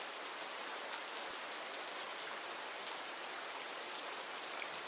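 Steady rain falling in a forest: an even hiss of rainfall with scattered individual drops ticking on surfaces.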